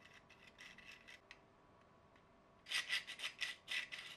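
Moving parts of a 3D-printed plastic print-in-place mechanism worked by hand. A few faint clicks come first, then, about two-thirds through, a quick run of rasping strokes, several a second, as the printed sliders and gears rub against each other.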